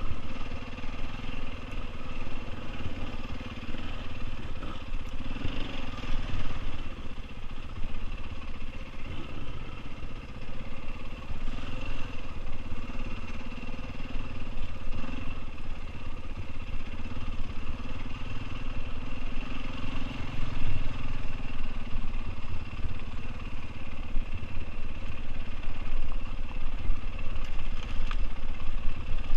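Off-road motorcycle engine running as the bike rides a bumpy dirt track, holding a fairly steady engine note, over a low rumble from the rough ground and the wind.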